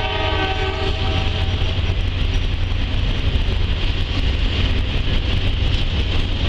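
Norfolk Southern Roadrailer freight train passing: the locomotive horn sounds and stops about a second and a half in, then the train rolls by with a steady low rumble and wheel noise.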